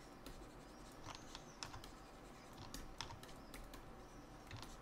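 Faint, irregular clicks of a computer mouse and keyboard, about a dozen light taps, over a low steady hiss.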